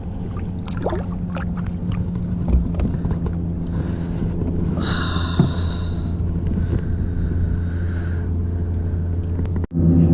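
Motorboat engine running at a steady speed, a continuous low drone.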